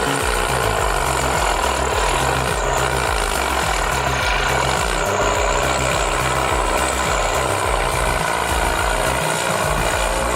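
Engine of heavy machinery running steadily.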